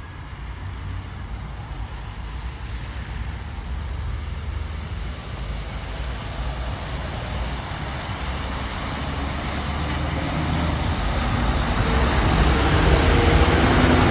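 Scania truck's diesel engine running steadily as the truck approaches and pulls past close by, growing louder toward the end, with tyre noise on the wet road.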